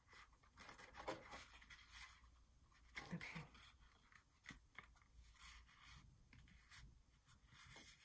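Faint, scattered rustles and light taps of paper being handled: a die-cut paper floral strip pressed onto a paper pocket.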